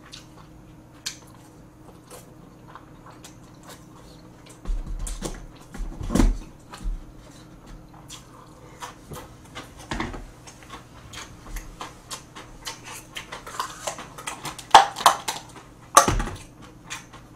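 Close-up eating sounds: chewing, with chopsticks clicking and tapping against plastic takeout containers. Near the end, a quick run of louder clicks and knocks as the plastic containers and lids are handled.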